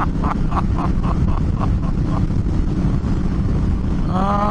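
Honda Africa Twin CRF1000L parallel-twin motorcycle riding at road speed, heard as a steady rush of engine and wind noise on the helmet microphone. A row of short, evenly spaced pulses, about three a second, fades out in the first two seconds.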